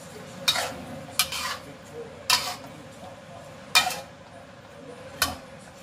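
Metal spatula scraping and clanking against a stainless steel wok as chicken and vegetables are stir-fried, about five strokes at uneven spacing.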